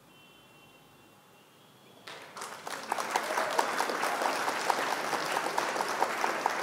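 Applause sound effect: a crowd clapping that starts suddenly about two seconds in, after a quiet start. It marks the quiz answer being revealed.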